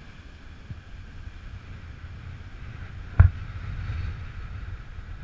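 Wind buffeting the microphone over the wash of ocean surf, with one sharp knock about three seconds in.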